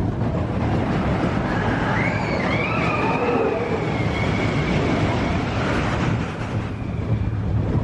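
Expedition Everest roller coaster train running along its steel track: a steady rumble with rushing wind noise, with a faint wavering cry partway through.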